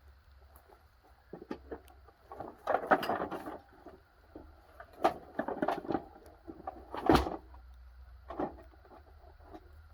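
Irregular knocks, scrapes and clatter of a dehumidifier's parts being broken apart, with a sharp knock about seven seconds in that is the loudest.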